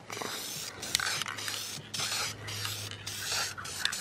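Aerosol can of black Nightshade lens tint spraying in short repeated hissing bursts, about two a second, as the paint is laid over a plastic taillight garnish in quick passes.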